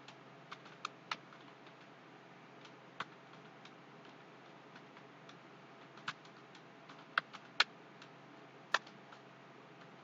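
Computer keyboard keys being struck, about ten sharp, irregular clicks spread over several seconds, over a faint steady hiss.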